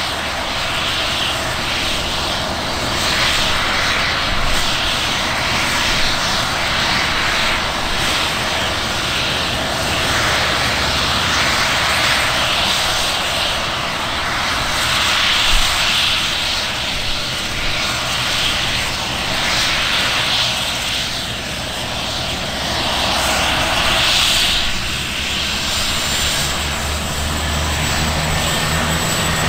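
AgustaWestland AW139 helicopter's twin turboshaft engines and rotors running: a loud, steady rushing hiss that swells and eases every few seconds. A low hum comes in near the end.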